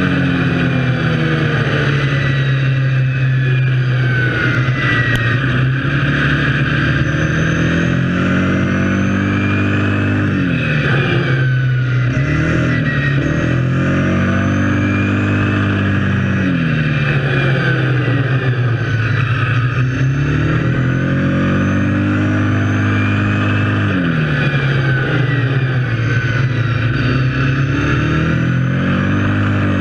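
Kawasaki KFX700 quad's V-twin engine running under way, its pitch dropping and climbing again about three times as it slows and speeds up.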